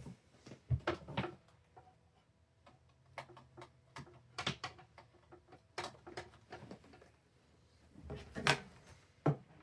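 Scattered clicks and knocks from handling a plastic box fan, with one louder knock near the end.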